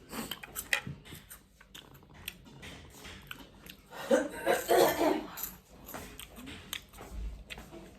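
Close-up eating sounds: wet chewing and crunching clicks. About four seconds in comes a louder, throaty burst of coughing, as from the chilli of spicy noodles.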